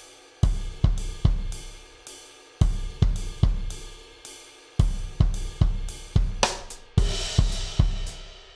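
Sampled drum kit played live from a MIDI keyboard: short runs of kick, snare and hi-hat hits with pauses between, each hit ringing out, and a brighter crash cymbal about seven seconds in.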